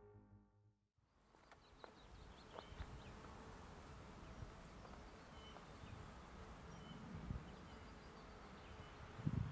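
Faint open-country ambience that starts about a second in: short distant bird chirps over a soft hiss, with low wind rumbles on the microphone that grow near the end.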